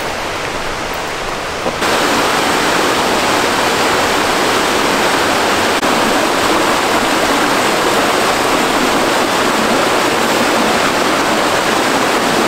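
Mountain stream rushing over boulders in a small cascade: a steady, loud rush of water that jumps louder about two seconds in.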